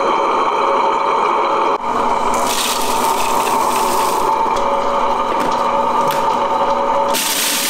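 Electric chocolate grinder (stone-wheel mélangeur) motor running steadily. From about two seconds in, a rush of cacao nibs pours into a grinder bowl, and there is another rush near the end.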